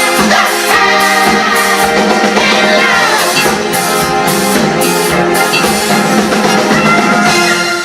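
A live band playing a song, with drum kit, held chords and singing.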